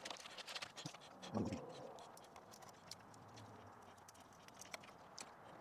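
Faint small clicks and ticks of electrical wires and a plastic plug-in terminal connector being handled, with a brief low sound about a second and a half in.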